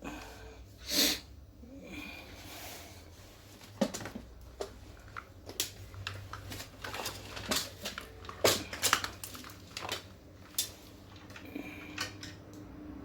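Scattered sharp clicks and taps of small tools, clips and tablet parts being handled on a repair bench, with one louder short sound about a second in, over a steady low hum.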